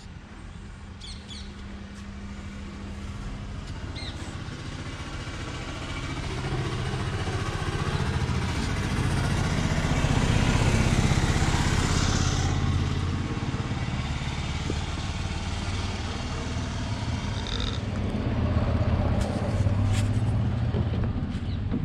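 Motor vehicle passing on the road, its engine rumble and tyre noise swelling to a peak about halfway through and fading, then a second vehicle swelling near the end.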